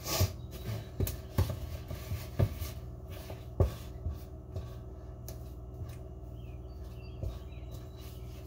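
Wooden spoon knocking and scraping against a mixing bowl as stiff pizza dough is stirred and the sides scraped down: irregular knocks, several in the first four seconds and fewer after, over a steady low hum.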